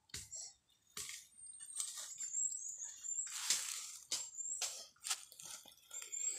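Dry bamboo leaves crunching and rustling in short irregular bursts, as of footsteps and handling on a thick leaf litter. Thin, very high chirps waver in the background, twice.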